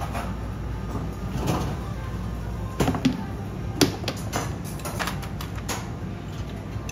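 Metal skewers of eel fillets clinking and knocking against the charcoal grill as they are handled and turned, a few sharp clicks a second or so apart, the loudest a little before halfway. Beneath them runs a steady low hum, with background music.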